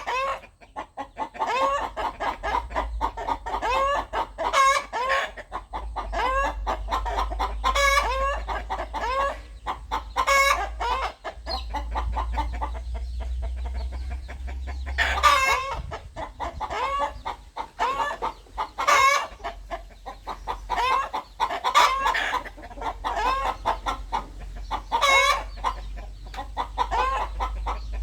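Rooster clucking in a long run of short, repeated clucks, with a quieter stretch about halfway through, over a steady low background rumble.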